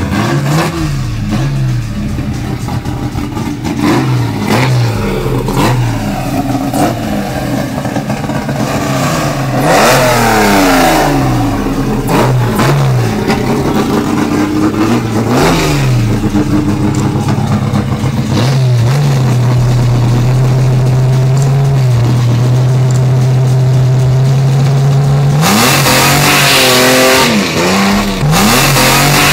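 Chevrolet Opala's naturally aspirated 4.1-litre straight-six drag engine revved again and again in rising and falling blips, then held at steady high revs for several seconds. Near the end a loud hiss joins as the rear tyres spin in a smoky burnout, with the engine revving over it.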